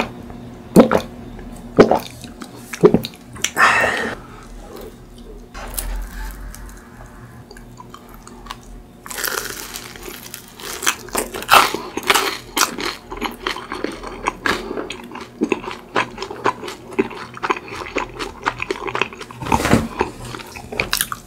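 Swallowing a bottled drink in loud gulps, about one a second, for the first few seconds. Then biting into and chewing crisp croffles (croissant waffles), with close-up crunching and chewing that continues to the end.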